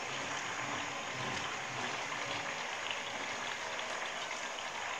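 Chicken curry bubbling steadily in an open pan on a gas burner, its water mostly cooked off and the meat gone tender.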